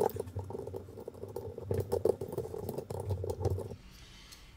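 A small 60 mm plastic PC fan being worked and pressed into a heatsink's fan frame by hand: a quick run of small plastic clicks and knocks that stops shortly before the end.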